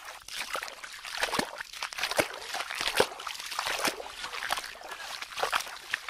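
Several people wading barefoot through a shallow stream, their feet sloshing and splashing in the water with each step, in quick irregular succession.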